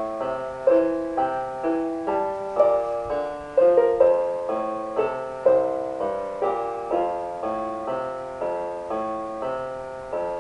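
Solo piano music: a slow melody over broken chords, notes struck about twice a second, each ringing and fading.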